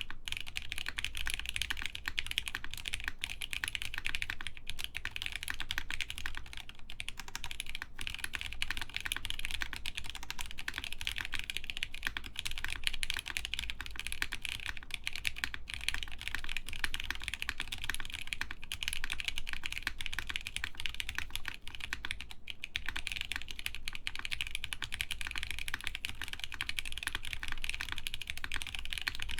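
Continuous fast typing on an Axiom Studios Typ60 mechanical keyboard with lubed linear OP Black switches, a stream of dense keystroke clicks with only brief pauses.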